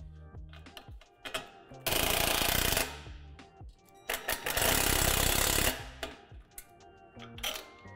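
Cordless impact driver driving two bolts into a steel playset leg bracket, in two loud runs of rapid hammering. The first run starts about two seconds in and lasts about a second; the second starts about four seconds in and lasts about a second and a half.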